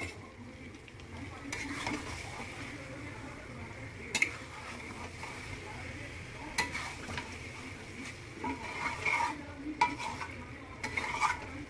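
Metal spatula stirring and scraping chicken and potatoes in thick masala in a steel kadai, with a few sharp clinks of spatula on pan, over a steady sizzle of the masala frying in oil.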